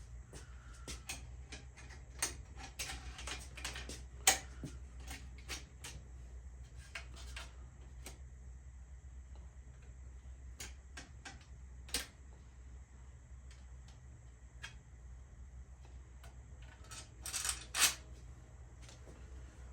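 Irregular metallic clicks, clinks and taps of hand tools and small bicycle parts being fitted and tightened on a lowrider bike frame. A few sharper knocks about 4 s and 12 s in, and a short cluster near the end.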